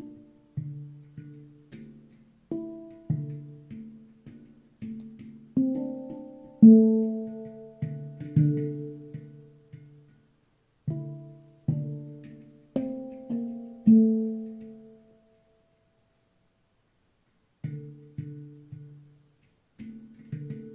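Handpan played by hand: single struck steel notes that ring and fade, making a slow melody. The playing stops for about two seconds past the middle, then starts again.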